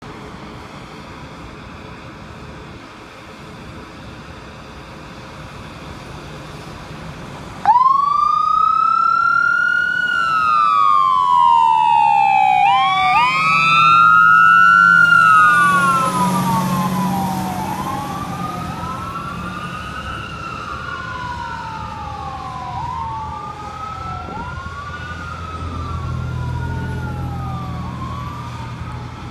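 Fire engine siren switching on suddenly after several seconds of steady background rumble, then wailing in repeated cycles of a quick rise and a slower fall, two wails overlapping. The truck's engine grows loud as it pulls out and passes, and the siren fades as it drives away.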